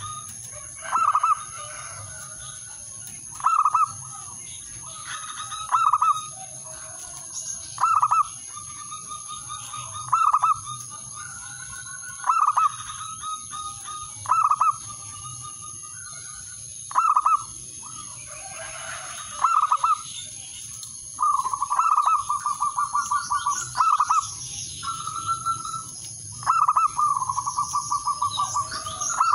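Male zebra dove cooing its staccato song: short phrases repeating about every two seconds, with longer, fast-pulsed trilled phrases in the second half.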